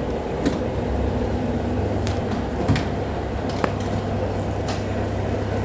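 Machinery running with a steady low hum, with a few sharp clicks and knocks at irregular moments.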